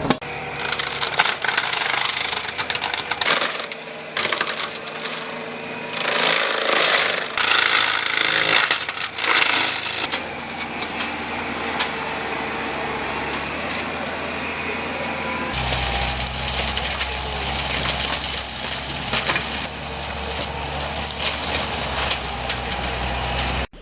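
Heavy machinery at work with irregular metallic clattering and knocking. About fifteen seconds in it changes abruptly to a steadier low engine rumble.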